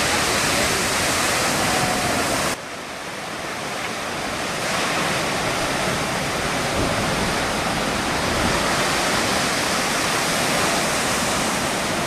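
Heavy surf: big waves breaking against a concrete seawall, a dense steady roar of crashing water and spray. The roar drops suddenly about two and a half seconds in and builds back up over the next two seconds.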